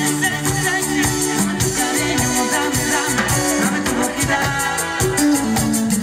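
Live cumbia band playing loudly: a male singer over bass guitar, keyboards and a steady beat of shaker-like percussion.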